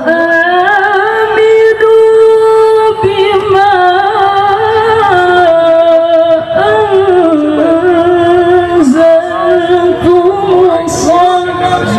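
Female qari'ah's voice in melodic Qur'an recitation (tilawah): long held notes ornamented with quick wavering turns, the melody stepping down lower about five seconds in.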